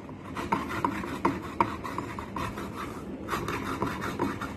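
Fresh turmeric root being rubbed across a hand grater: a run of short, irregular rasping strokes.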